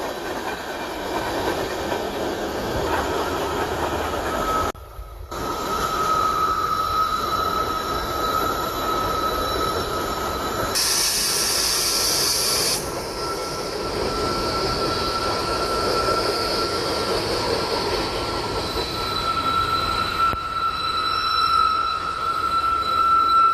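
A freight train rolling slowly past, its steel wheels squealing on the rail in a steady high tone over the rumble of the cars. A brief high hiss sounds about halfway through.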